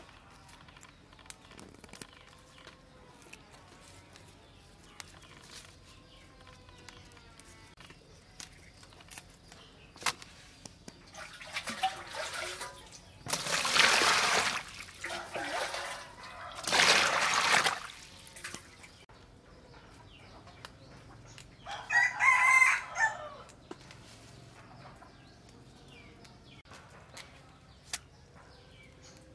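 Water poured from a scoop into a plastic basin of leafy greens, splashing in two pours about halfway through. A rooster crows once a little later.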